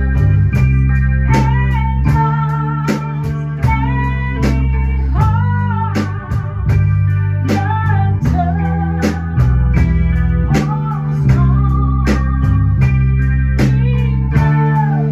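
Blues band playing: a guitar lead with bending, gliding notes over bass and drums keeping a steady beat of about two strokes a second.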